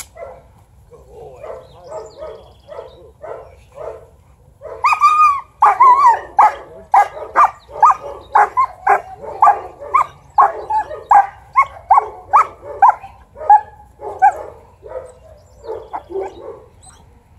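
Leashed dog barking at a decoy during bite training: quieter calls at first, then from about five seconds in a fast run of loud barks, about two a second, easing off near the end.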